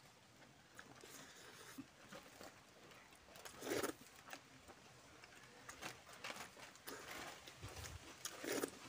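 Quiet eating by hand: small wet mouth clicks and chewing, and fingers working rice on a banana leaf, with two louder short sounds, one near the middle and one near the end.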